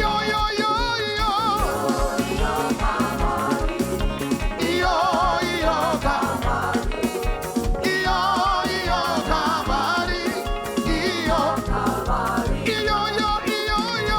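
Upbeat gospel praise music with a steady, regular beat and a wavering melodic lead line.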